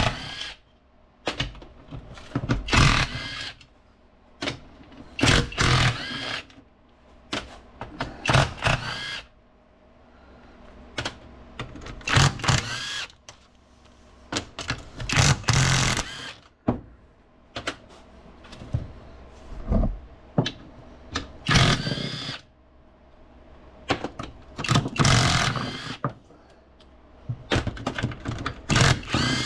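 Power impact wrench zipping out the 15 mm bolts around a transfer case, in short bursts about a dozen times, each winding up and down in pitch, with metal clinks in between.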